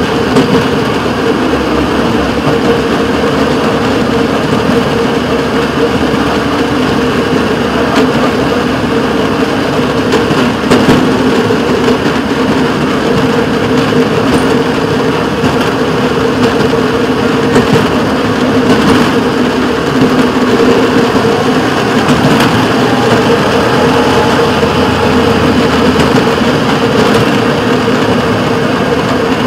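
Small engine of a rail motorcar (speeder) running steadily as it travels along the track, a constant drone with a few faint clicks.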